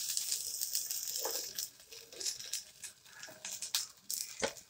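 Chopped onions tipped into hot oil in a steel pot, sizzling at once. The hiss is strongest for the first second and a half, then thins to scattered crackles and light clicks of the onions on the steel.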